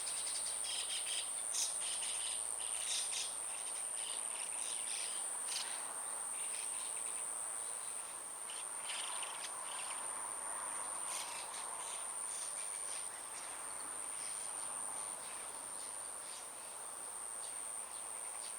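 A steady, unbroken high-pitched insect drone, with short bird chirps scattered through it.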